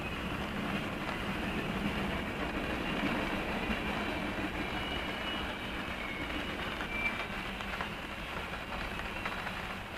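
Norfolk Southern mixed freight train's cars rolling past, a steady rumble of steel wheels on rail with a few faint brief wheel squeals, heard from inside a parked car.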